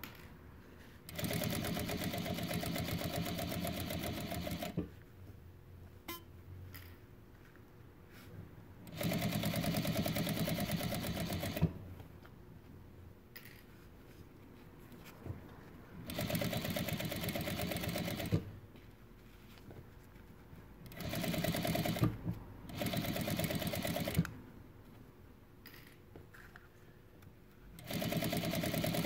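Juki DDL-8700H industrial single-needle lockstitch sewing machine stitching a straight seam through a thick, many-layered fabric collar. It runs in about six short spurts of two to four seconds, stopping between them while the work is guided.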